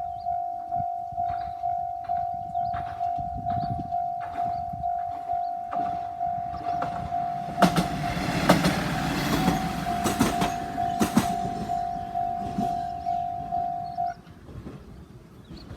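Japanese level-crossing alarm ringing its steady electronic two-per-second clang. Midway a Tenryu Hamanako Railway diesel railcar rumbles across, its wheels clacking over the rail joints for about four seconds. A few seconds after the train has gone, the alarm stops.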